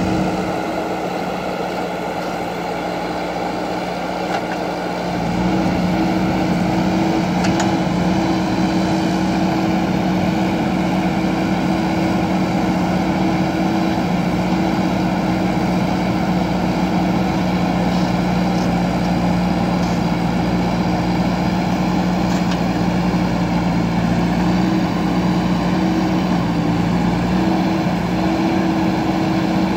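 Diesel engine of a JCB backhoe loader running steadily, getting louder about five seconds in and holding that level, with a few faint clicks.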